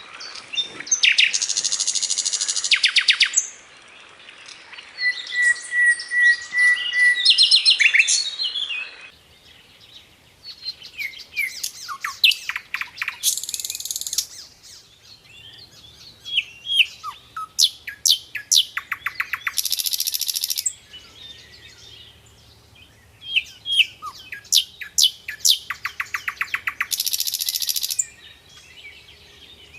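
A songbird singing a varied chattering song: fast buzzy trills of rapidly repeated notes lasting a second or two, between sharp single chirps and quick falling whistles.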